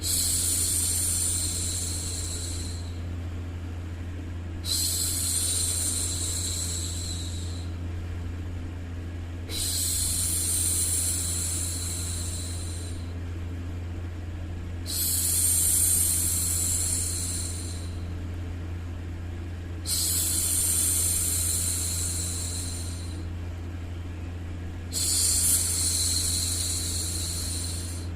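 A woman's voice making long hushing 'shhh' sounds to soothe a baby, each lasting three to four seconds and repeating about every five seconds, six in all. A steady low hum runs underneath.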